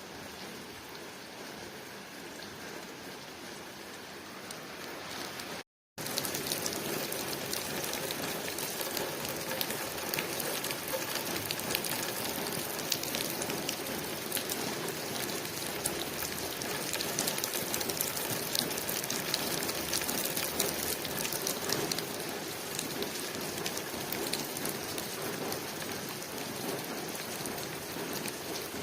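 Rain pattering on a window, a steady hiss of falling rain with many small drop ticks. About six seconds in the sound cuts out completely for a moment, then returns louder and with more distinct drops.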